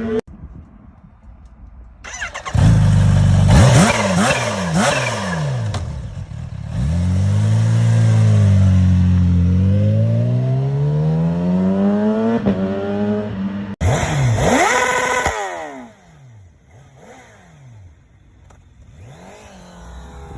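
A run of short clips of sport motorcycle engines revving, cut abruptly one into the next: sharp blips, then a long rev that falls and climbs again, then a loud rev dying away, and quieter throttle blips near the end.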